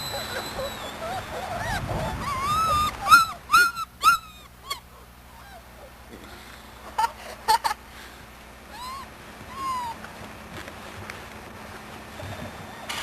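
Young puppies whining and yelping in short, squeaky, rising-and-falling cries. A quick run of them comes a couple of seconds in, followed by a few scattered cries later.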